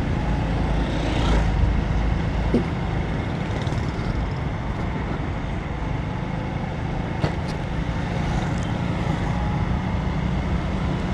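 Motorcycle riding through city traffic: a steady engine and road rumble with wind on the microphone. It swells briefly about a second in as another motorcycle passes close by.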